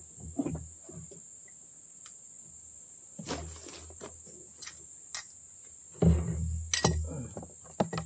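Fishing gear and boxes knocking, clinking and scraping against a small boat as they are handled. The loudest thumps and clinks come about six to seven seconds in.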